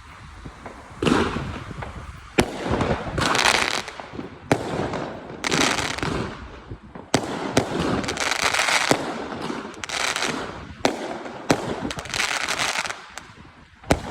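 Fireworks going off in quick succession: sharp bangs, each followed by a burst of crackling, about one every second.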